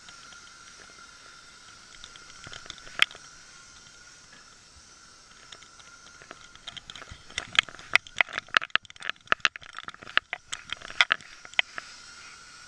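Sharp clicks and clacks from a camera strapped to a moving dog's collar: a single click about three seconds in, then a dense run of them from about seven to eleven seconds in, over a steady faint tone.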